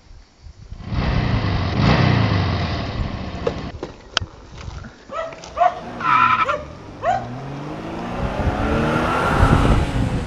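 A car engine running and passing by, starting about a second in, its pitch falling later on. There are several short squeal-like tones in the middle and a sharp click about four seconds in.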